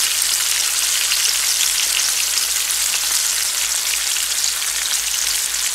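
Two whole koi fish (climbing perch) frying in hot oil in a pan: a steady sizzle with fine crackling.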